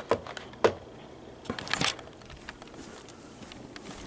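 Handling noise from a phone being picked up and moved: a few sharp clicks and taps in the first second, then a brief rustling scrape.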